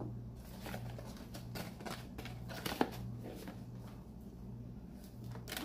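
Faint rustling and a few light taps and clicks of hands handling ingredients and packaging, over a steady low hum.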